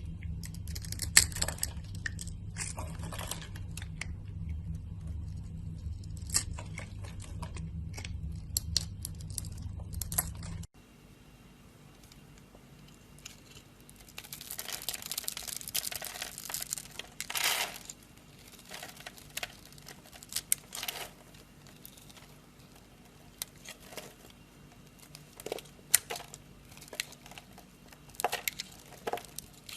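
A knife cutting and scraping dry soap: crisp crunching, crackling strokes over a steady low hum. About ten seconds in, the hum stops abruptly and the cutting goes on more quietly, with scattered crunches and clicks.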